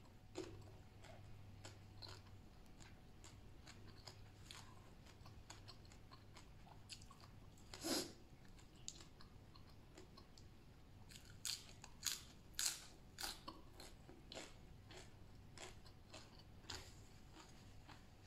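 A person eating close to the microphone: quiet chewing and crunching of raw vegetables and papaya salad, with one louder noise about eight seconds in and a run of sharper crunches around twelve seconds in.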